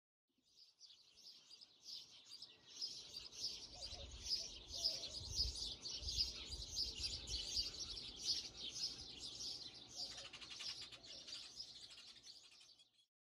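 Many small birds chirping and twittering in a steady chorus, with a low rumble underneath for several seconds in the middle.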